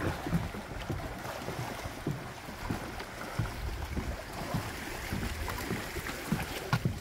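Lake water lapping around a wooden dock, with irregular soft thumps of footsteps on the dock boards.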